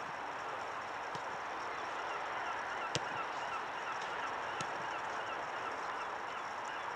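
Birds calling in the distance, a quick run of short repeated calls, over a steady outdoor hiss. One sharp click about three seconds in.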